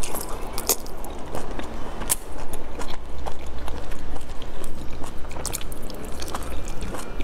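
A person biting into and chewing soft dumplings, close to a clip-on microphone: wet mouth sounds with sharp clicks scattered throughout.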